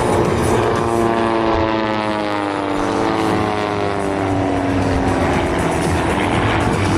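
Propeller airplane flying past, its drone falling in pitch as it goes by, over a steady loud rumble.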